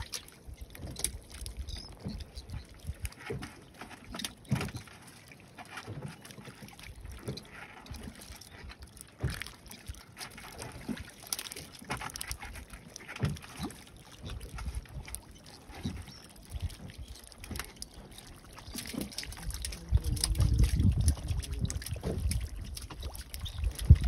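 Scattered knocks and clicks of fishing line and gear being handled in a small wooden boat, with water lapping at the hull. A low rumble of wind on the microphone swells near the end.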